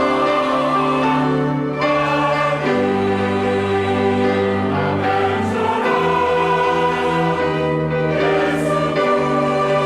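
Church choir singing a sacred anthem in several parts, holding sustained chords that change every second or so.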